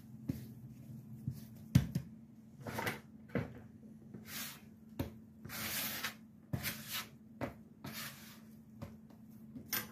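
Hands kneading soft, sticky dough on a floured wooden cutting board: irregular soft slaps and knocks with short rubbing, squishing stretches, the sharpest knock about two seconds in.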